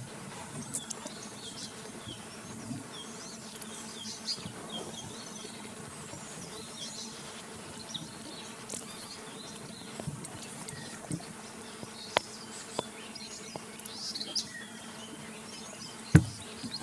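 Forest ambience: a steady buzz of insects with scattered short, high bird chirps from several birds, and a single loud thump near the end.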